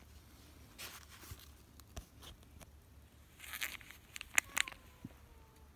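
Scattered rustling and crunching in dry leaf litter, with two sharp clicks about four and a half seconds in. Near the end a faint tone slides slowly down.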